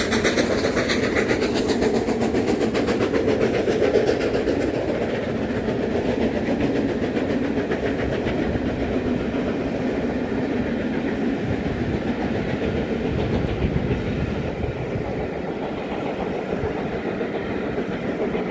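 Steam-hauled passenger train passing close by: a steady rumble of coaches rolling over the rails with the clatter of wheels on the track. The locomotive's exhaust beats are densest in the first few seconds as the engine pulls away.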